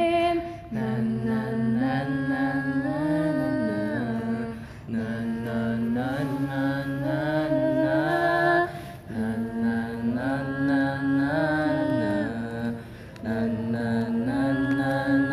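A group of voices singing a melody together, a lower and a higher part, with no clear words, in four phrases of about four seconds each separated by short breaks.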